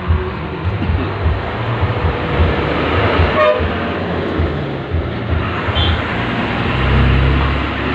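Road traffic going by close to an open-fronted shop, with a short vehicle horn toot around the middle and a heavier vehicle's low rumble swelling near the end.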